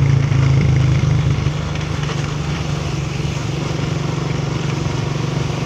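A motor vehicle's engine running steadily while driving along a road, with road and wind noise; it eases slightly about a second and a half in.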